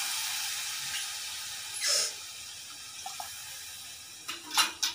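Potato masala sizzling with a steady hiss in an aluminium pressure-cooker pan, gram-flour slurry just poured in; the hiss slowly dies down. A short noise about two seconds in and a few light clicks near the end.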